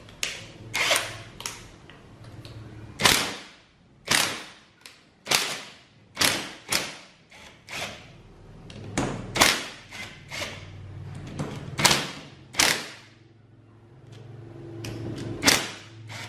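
Cordless impact wrench loosening the nuts on the spring-loaded flange of a combine harvester's guide hydraulic cylinder. It goes in a dozen or so short hammering bursts, with a low whir between some of them.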